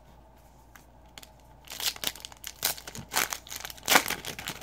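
A trading-card pack wrapper being torn open and crinkled by hand, starting about a second and a half in, in a run of sharp crackling rips and rustles that is loudest near the end.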